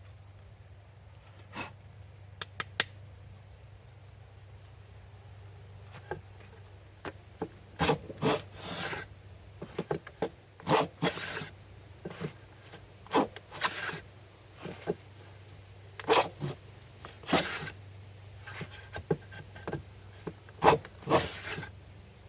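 Hand grooving plane being pushed along a wooden board in short, quick strokes, its iron scraping and shaving as it cuts a groove. A few light clicks come first, and the strokes begin about six seconds in.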